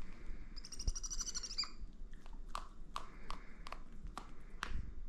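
Pet owl eating a mouse: a short, high, rapidly pulsed chittering call about half a second in, then a string of sharp clicks, roughly two a second, as it eats.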